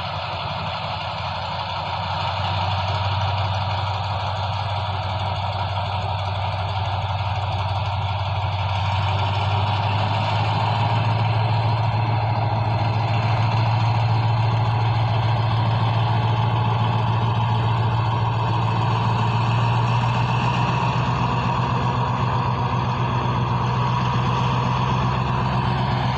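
Alsthom diesel locomotive's engine running with a steady low drone that grows louder about two seconds in and again about ten seconds in, as the train pulls out of the station.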